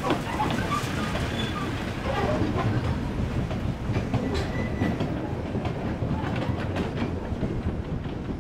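Baguley-Drewry diesel locomotive on a narrow-gauge line passing close by with its engine running, followed by its open passenger carriages. A steady low rumble of the engine and wheels carries throughout, with irregular clicks as the wheels cross the rail joints, easing slightly near the end as the train moves away.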